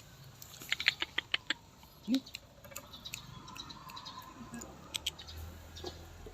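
Cats chewing and crunching their food: a quick run of sharp clicks about a second in, then a few more near five seconds. A short low sound comes about two seconds in.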